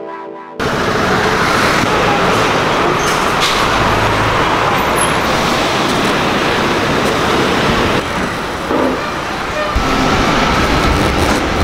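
The last of the background music cuts off abruptly, giving way to steady road traffic noise from passing cars. Later the background shifts to a restaurant kitchen's ambience with a faint steady whine.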